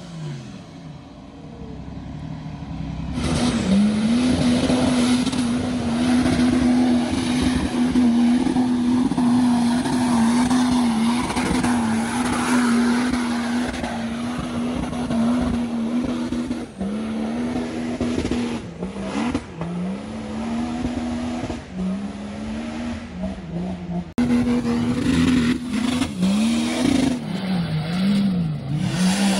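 Off-road 4x4 engines revving hard under load while the tyres spin and churn through deep mud. The engine note is held high and steady for long stretches and swings up and down in quick revs near the end. The sound changes abruptly about three seconds in and again a few seconds before the end.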